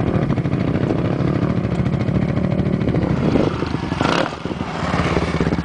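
Sport ATV engine running hard as the quad closes in, the revs rising a little after three seconds; around four seconds, as the quad is airborne off a jump, the engine sound dips briefly and then picks up again.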